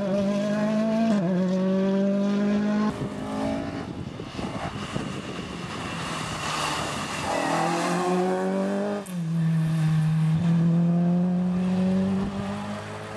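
Rally car engines at high revs as cars pass at speed, a Ford Fiesta and a Mk2 Ford Escort among them. The engine note climbs and drops sharply with gear changes and lifts, and fades near the end.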